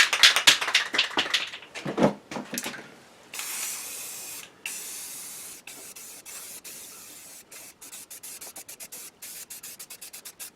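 Aerosol spray-paint can: the mixing ball rattles as the can is shaken, then the paint sprays in a long steady hiss with one brief pause, breaking into a rapid series of short spurts over the last few seconds.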